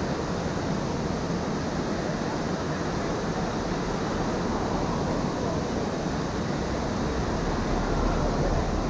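Steady rush of water pouring over a river weir in high flow.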